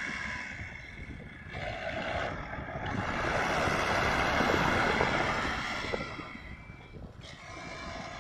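Tata backhoe loader's diesel engine working, its note rising and falling with the load: it eases about a second in, swells through the middle and drops again near the end. Wind is on the microphone.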